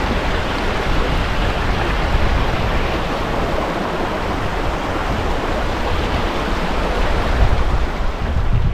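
Styhead Gill, a mountain stream, rushing steadily.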